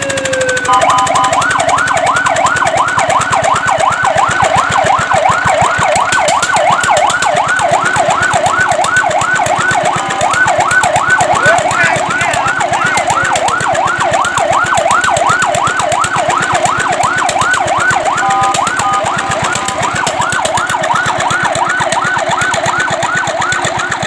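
Fire truck siren sounding in a fast yelp, its pitch sweeping rapidly up and down over and over. It is broken twice by a short steady tone, about a second in and again about two-thirds of the way through.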